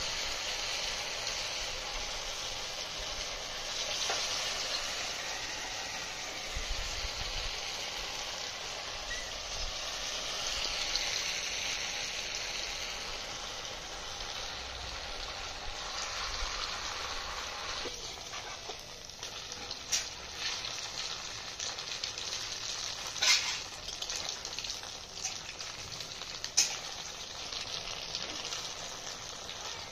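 Chire-and-suji (flattened rice and semolina) fritters deep-frying in hot oil in a wok, a steady sizzle. From about two-thirds of the way in come a few sharp knocks, two of them louder than the rest.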